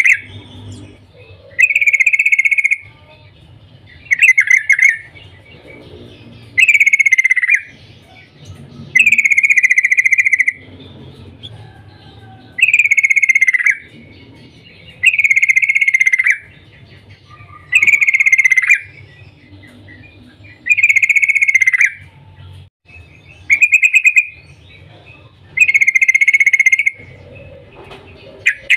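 Yellow-vented bulbul (trucukan) singing a loud phrase about a second long, repeated about every two seconds, each with a slightly falling, wavering note.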